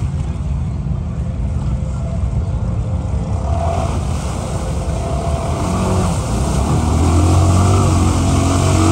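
Snorkeled ATV engine running under load as the quad is driven and pushed through deep muddy water, its wheels churning and splashing. The engine rumble gets louder from about six seconds in.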